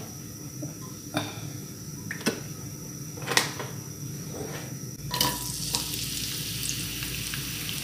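A few sharp knocks of things against a wok. Then, about five seconds in, chopped shallots and garlic go into hot oil and start sizzling steadily.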